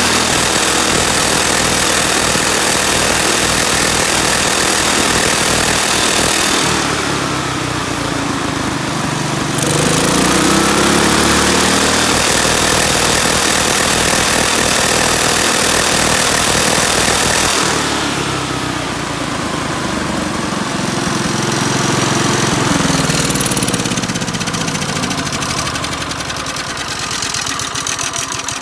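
The 10 horsepower Kohler single-cylinder engine of an Ingersoll-Rand T30 two-stage air compressor running, dropping to idle and then speeding back up twice: the kick-down that slows the engine when pressure builds and returns it to fast speed to make air.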